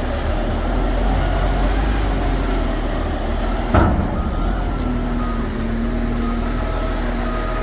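Heavy diesel truck engine running steadily with a low rumble, and one sharp knock a little under four seconds in.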